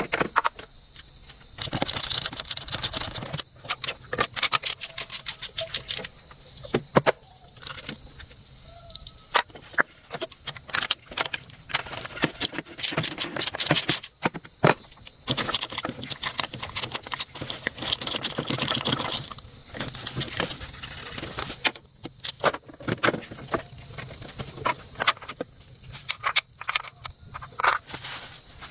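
Metal parts and hand tools clinking and rattling. The sound comes in bursts of rapid clicks with short pauses between them.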